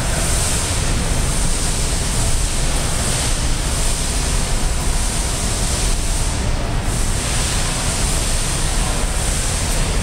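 Steady, even rushing hiss of background noise with no distinct events in it.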